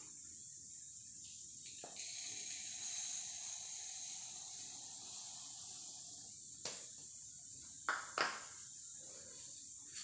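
Dry grains poured from a plastic cup into a small steel cup, making a faint steady trickling hiss for about four seconds. This is followed by three light knocks as the cups are handled and set down.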